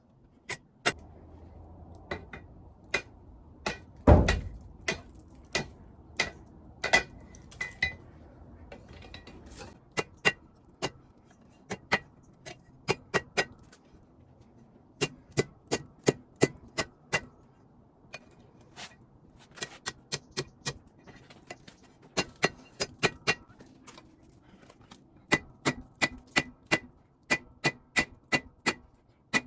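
Hammer striking steel on an anvil while forging a sword: sharp ringing blows in runs of about three a second with short pauses between runs, and one heavy low thump about four seconds in.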